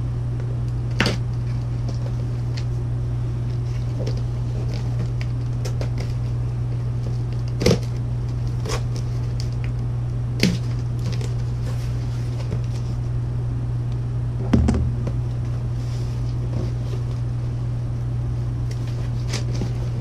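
Packing tape being peeled and torn off a large cardboard box, with cardboard flaps handled. A handful of sharp rips and knocks stand out, one of them a dull thump, over a steady low hum.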